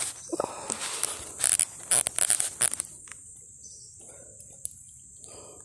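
Insects droning steadily at a high pitch, with a stretch of rustling and handling noise over the first three seconds.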